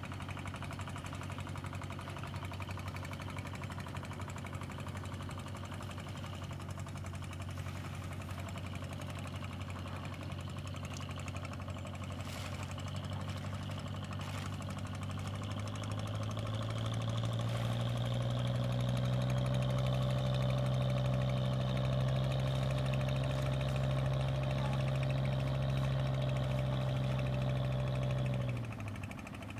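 A boat engine running steadily with a low, even hum. It grows louder about halfway through and cuts off suddenly near the end. A couple of faint clicks come in the middle.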